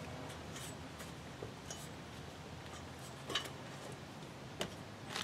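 A handful of faint, scattered clinks and taps as boots and hands meet the rungs of a metal lattice antenna tower during a climb, over a low steady background hum.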